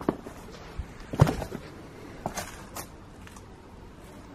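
Footsteps crunching over twigs, leaf litter and scattered debris, with a handful of sharp cracks and knocks, the loudest a little over a second in.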